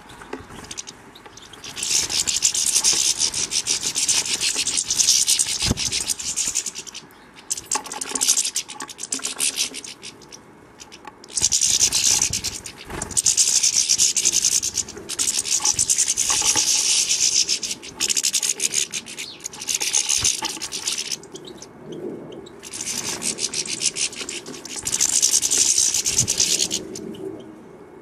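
European goldfinches feeding at a seed feeder close to the microphone: a dry, scratchy crackling of pecking and seed-husking that comes in bursts of a few seconds with short pauses between them.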